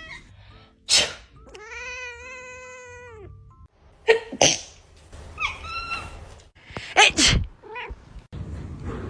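A person sneezing sharply about three times, and a cat meowing in between: one long meow after the first sneeze that drops in pitch at its end, and a shorter call after the second.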